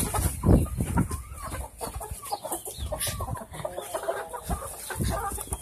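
Hens and a rooster clucking and squawking in short calls as they are chased, over low thumps and rumble from the handheld phone being jostled. The thumps are loudest about half a second in and again near the end.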